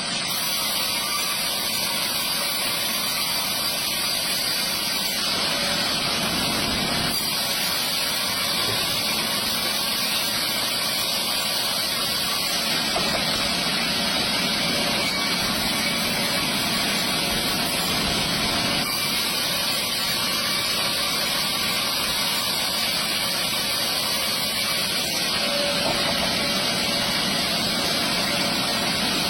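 Stihl chainsaw running steadily under load, sawing lengthwise through a big log as a chainsaw mill.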